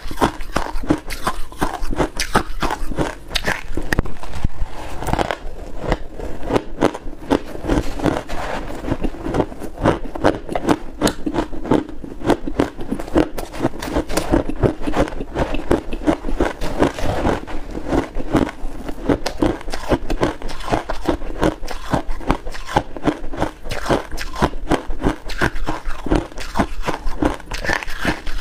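Close-up crunching and chewing of mouthfuls of freezer frost, a dense run of crisp crackles, along with a metal spoon scraping and scooping the frost in a metal pot.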